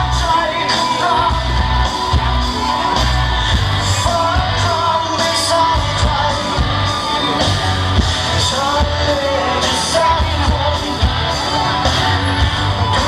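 Loud pop-rock song with a singer over a steady beat and heavy bass.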